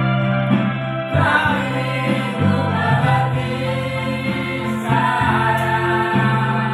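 A small mixed vocal group of young men and women singing a church song together in harmony, over instrumental accompaniment whose sustained chords change every second or so.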